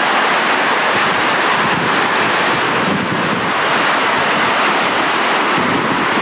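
Strong tornado winds making a loud, steady rushing noise, with wind buffeting the microphone.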